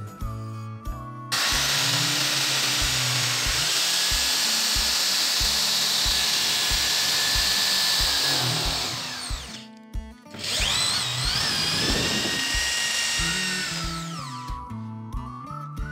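Power drill spinning a wooden blank through a homemade razor-blade dowel maker, the blade shaving it round: the drill motor whines under the steady hiss of the cutting. It starts about a second in, stops briefly around ten seconds, then runs again and winds down near the end. Background music plays underneath.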